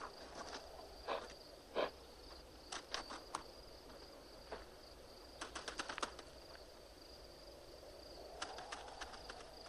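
Dry animal bones clicking and knocking together in short clusters every couple of seconds as they are rummaged through, over a steady, high, faint insect drone of desert ambience.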